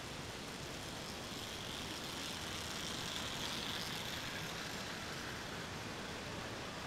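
Hornby Dublo three-rail model steam locomotive and coaches running on the track past the crossing. The sound grows louder as the train comes close, about two to four seconds in, then eases off over a steady background hiss.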